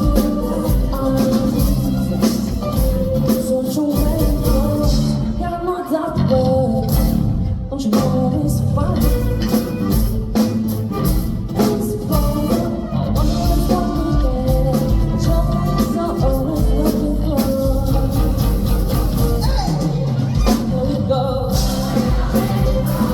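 Live band music with singing: a lead vocal over drums, bass and guitar, played continuously at full volume.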